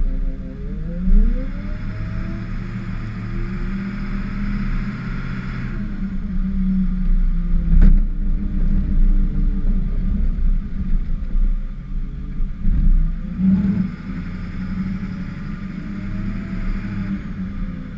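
Ford F-550 plow truck's engine revving up as the truck pushes ahead and easing off about six seconds in, then revving up again about thirteen seconds in and dropping back near the end, with a hiss that comes and goes with each rev. A single sharp knock about eight seconds in.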